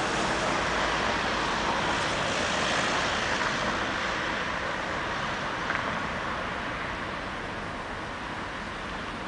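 Road traffic noise: a steady rush that slowly fades.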